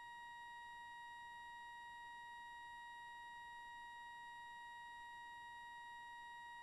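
Near silence with a faint, steady high-pitched tone, constant in pitch and level, like an electronic whine.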